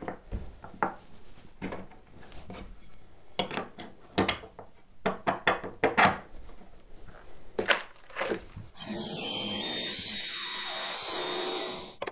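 Scattered knocks and clicks of tools and a drilling guide being set on a wooden workbench. About nine seconds in, a cordless drill starts boring a dog hole into the benchtop, runs steadily for about three seconds and stops suddenly.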